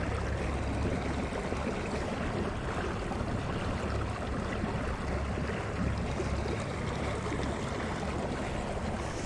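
Steady rush of water along a moving kayak's hull, mixed with wind on the microphone.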